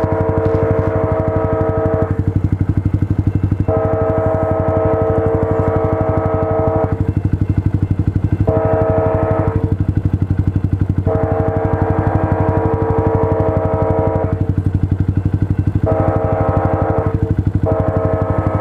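Train air horn sounding a chord of several steady notes in repeated blasts, in the grade-crossing pattern of long, long, short, long, then more blasts. Under it runs a steady low engine rumble with a fast pulse.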